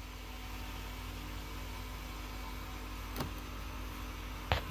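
Steady low hum and hiss inside a car cabin, with a faint click about three seconds in and two knocks from the phone being handled near the end.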